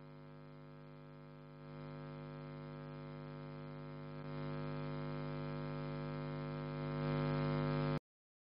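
Steady electrical mains hum with a buzzy stack of overtones, growing louder in a few steps and cutting off suddenly about eight seconds in.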